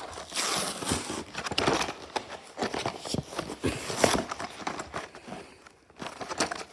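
Toy packaging being torn and pulled open by hand: a busy run of crinkling, rustling and sharp clicks, easing off briefly about five and a half seconds in.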